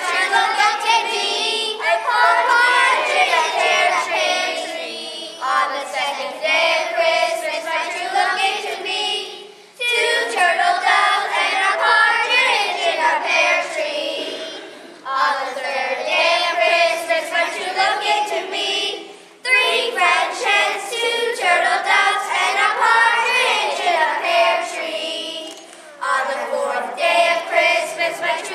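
A group of children singing together in phrases, with short breaks between phrases every four to six seconds.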